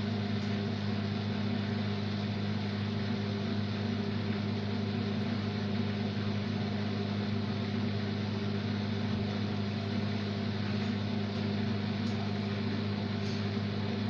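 Beko 6 kg front-loading washing machine running with a steady, even motor hum.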